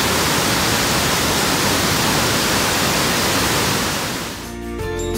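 Whitewater of a steep mountain cascade rushing over rocks: a loud, steady rush of water that fades out near the end as music comes in.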